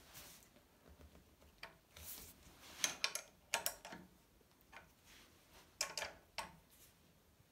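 Irregular light clicks and taps of a small spanner working the saddle clamp nuts on an exercise bike as they are tightened, some coming in quick pairs.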